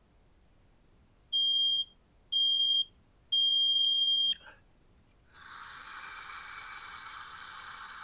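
Micro Smokerlyzer carbon monoxide breath monitor giving two short beeps and then one long beep. This marks the end of the 15-second breath-hold countdown and the signal to breathe out. About a second after the long beep, a steady exhale into the monitor's mouthpiece tube begins and runs on.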